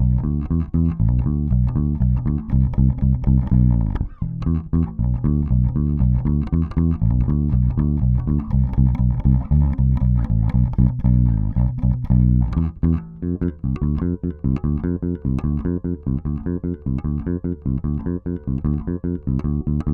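Warwick Corvette Standard five-string electric bass with a bubinga body, German-made, played fingerstyle in a busy run of quick plucked notes, with brief breaks in the line about four seconds in and again past the middle.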